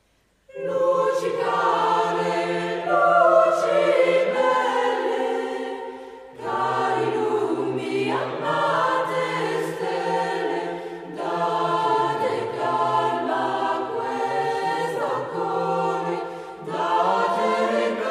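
Choral music: many voices holding sustained chords that change in steps. It comes in about half a second in and dips briefly about six seconds in before resuming.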